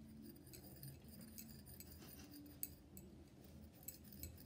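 Near silence: faint room tone, with a couple of small faint clicks, one about two and a half seconds in and one near the end.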